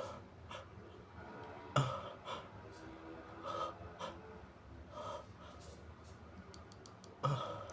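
A person sniffling wetly through a runny, congested nose, with a series of short sniffs and breaths. The sharpest sniffs come about two seconds in and near the end.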